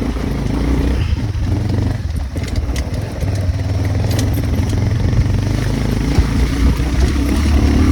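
Motorcycle engine running at low, steady revs over a rough unpaved road, with scattered rattles and clicks.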